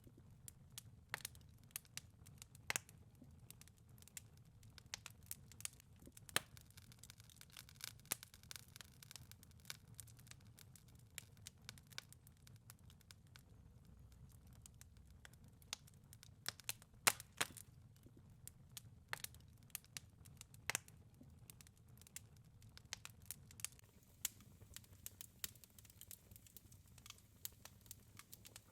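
Wood fire in a fireplace crackling: irregular sharp pops and snaps, a few loud ones, over a faint low rumble.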